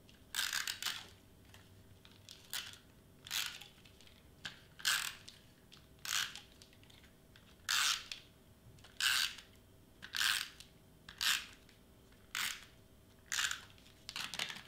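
Handheld adhesive tape runner pushed along the edges of paper in short strokes: a brief scratchy stroke about once a second, around a dozen in all.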